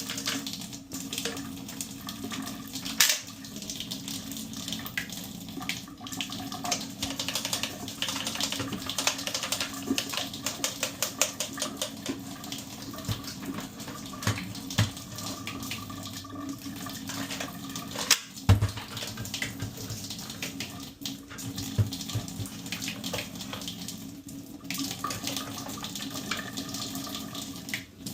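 Water running from a tap into a sink while a wet brush scrubs the Dyson vacuum's filter mesh, with rapid scratchy brush strokes and a few sharp knocks, the loudest about 3 and 18 seconds in.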